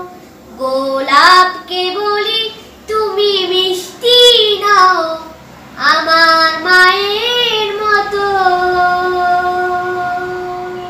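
A boy singing a Bengali song solo, with no accompaniment: short melodic phrases that rise and fall, then a long held note from about eight seconds in that fades away near the end.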